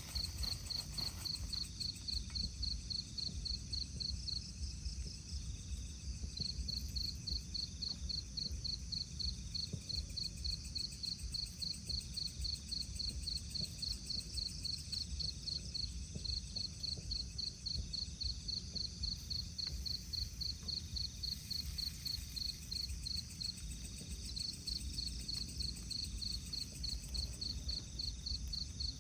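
Crickets chirping in an even, fast pulse of about four chirps a second, with a second, higher insect joining in now and then, over a steady low rumble.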